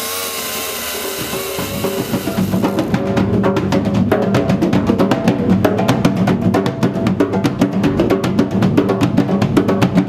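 A Stihl chainsaw runs for about the first second and a half, hollowing out a log for a drum shell. Then hand drums with skin heads come in, struck in a fast, busy rhythm with several drums playing together.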